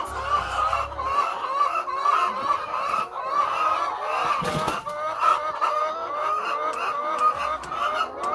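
A flock of layer chickens calling, with many short, overlapping clucks and calls repeating without pause. A brief rustle or scuffle comes about four and a half seconds in.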